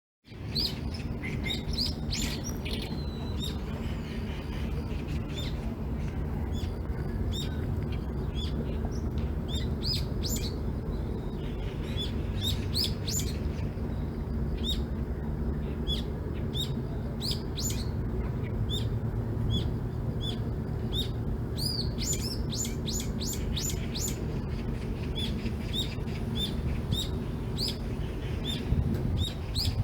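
Small songbirds chirping and calling in quick, repeated short notes, over a steady low rumble.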